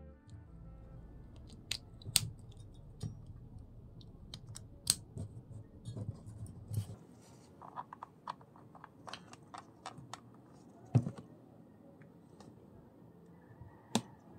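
Scattered sharp clicks and taps from a 3.5 mm audio plug, its cable and a small amplifier board being handled as the plug is pushed into a portable music player's headphone jack. A low hum runs underneath and stops suddenly about halfway through.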